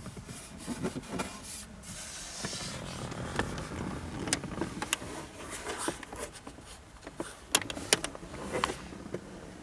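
Rustling with a string of sharp clicks and light knocks, the loudest two coming close together near the end.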